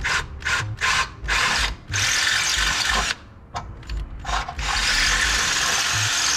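Handheld power drill enlarging a bolt hole: a few short bursts on the trigger, then longer steady runs of drilling, with a brief pause about three seconds in.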